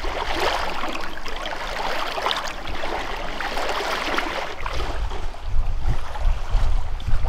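Loch water washing and lapping on a stony shore, a steady crackly hiss. About five seconds in, gusts of wind start rumbling on the microphone.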